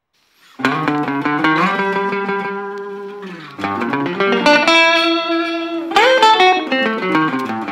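Metal-bodied resonator guitar played fingerstyle, starting about half a second in: plucked chords ring on and fade, and the notes slide up into each new chord.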